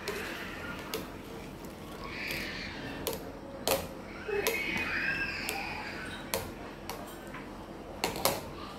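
A wire mesh skimmer stirring fruit in a stainless steel pot of water, its rim clinking and knocking against the pot every second or two. Brief high calls sound in the background about two seconds and five seconds in.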